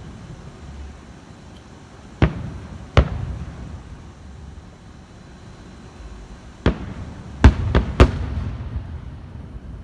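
Fireworks going off: six sharp bangs, two about a second apart, then after a pause four in quick succession, each trailing off in a low rumble.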